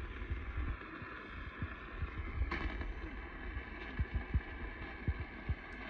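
Steady hiss and static from a radio receiver tuned to a weak, distant station, with a low rumble and scattered short thumps underneath.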